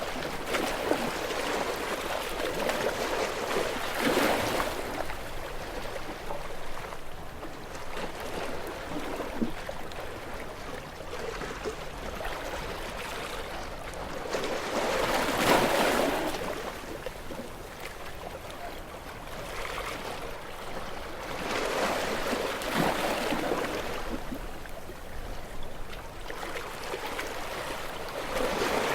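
Sea waves breaking against rocks, a continuous wash of surf that swells into louder breaks every several seconds, with the loudest about halfway through.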